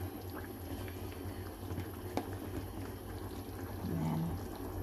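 Thick sweet-and-sour sauce bubbling in a frying pan, with small scattered pops and a sharper click about two seconds in.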